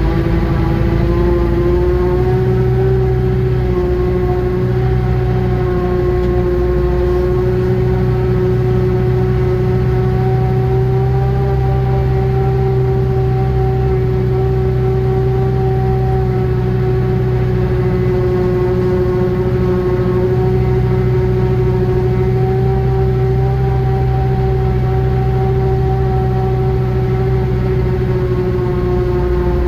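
A small machine's engine running steadily under way, a steady drone with a strong whining tone over a low hum; the tone rises a little in the first couple of seconds, then holds.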